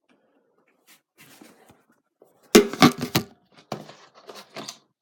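Clicks and knocks of the plastic fabric softener bottle, cap and measuring cup being handled, a loud cluster about halfway through and a few more near the end.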